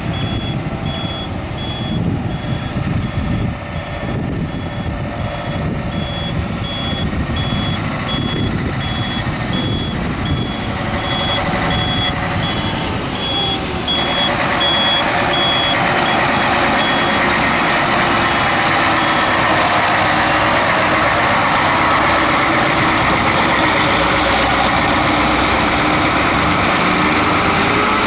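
Mercedes-Benz Actros truck running, with a reversing alarm beeping at a steady pace that fades out about two-thirds of the way through. About halfway in the engine gets louder, and near the end its pitch rises.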